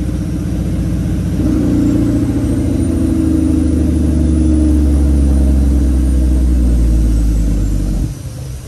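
Kenworth W900 semi truck's diesel engine pulling steadily while driving, heard from inside the cab. It gets louder about a second and a half in, then drops off suddenly near the end.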